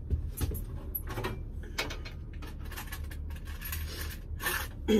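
Metal key blanks clinking and rattling as they are sorted through by hand, in scattered irregular clicks that grow a little louder near the end, over a steady low hum.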